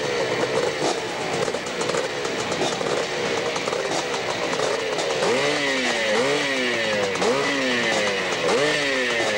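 Dirt bike engine revved hard and repeatedly at the foot of a hillclimb, the pitch jumping up and falling away about one and a half times a second, the blips sharpest in the second half.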